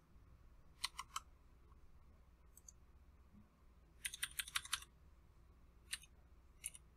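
Faint key clicks on a computer keyboard: three quick taps about a second in, a rapid run of about eight taps around four seconds in, and a single tap near the end.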